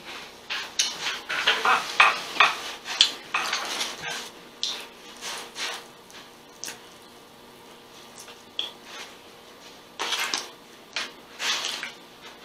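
Close-up eating sounds: a string of short clicks, crackles and smacks as food is handled on a plate and a lemon pepper chicken wing is pulled apart and chewed. They are busiest in the first few seconds and again near the end.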